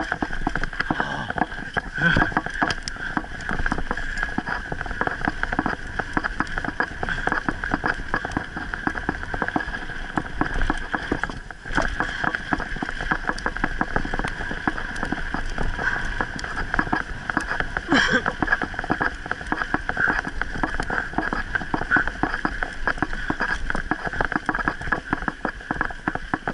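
Mountain bike ridden fast on a rough dirt trail: a constant clatter of rattling and knocking as the bike and the camera on it jolt over the ground, over a steady hiss.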